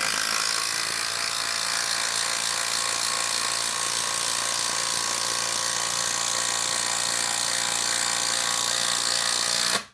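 DeWalt 12V Xtreme brushless impact driver hammering steadily under load as it drives a 6-inch lag screw into wood, stopping abruptly near the end.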